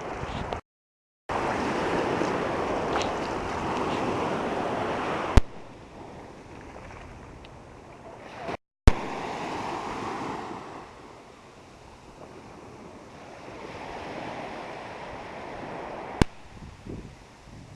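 Ocean surf washing on a beach with wind on the microphone, in several short pieces joined by abrupt cuts, each cut marked by a sharp click. It is loudest during the first few seconds.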